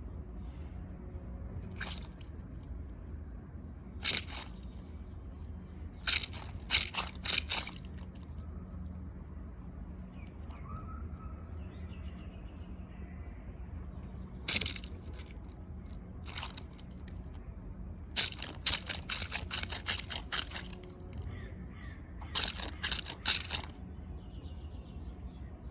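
Crunchy squishy dinosaur stress toy squeezed by hand, giving short bursts of crackling crunches: single squeezes at first, a quick run of crunches about six seconds in, and a longer fast run later on, over a steady low hum.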